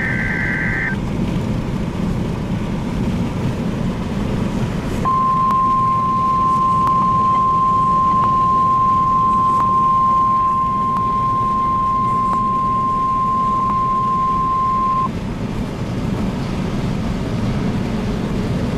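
NOAA Weather Radio alert going off inside a moving car: a short burst of data tones at the start, then about five seconds in the steady single-pitch warning alarm tone sounding for about ten seconds and cutting off. It is the alert for a newly issued tornado watch, heard over steady highway road noise.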